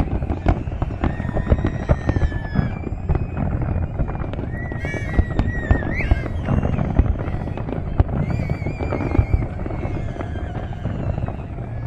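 Fireworks display going off: a dense run of bangs and crackling over a steady rumble, with high whistling tones rising and holding now and then.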